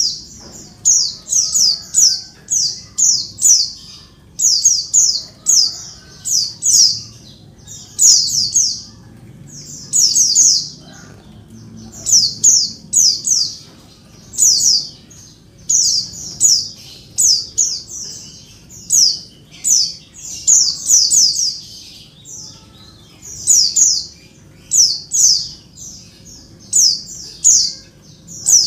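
Female white-eye (pleci) calling in rapid bursts of high, downward-sweeping chirps, several quick notes per burst, repeated about once a second without pause. This is the noisy female call that bird-keepers play to provoke males into answering and singing.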